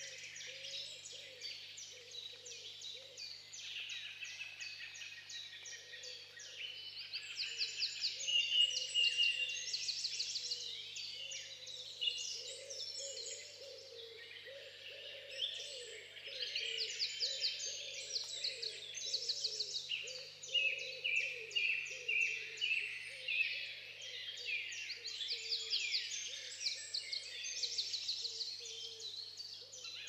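Several songbirds singing at once, a continuous dawn-chorus-like tangle of rapid chirps and trills that swells and fades in waves.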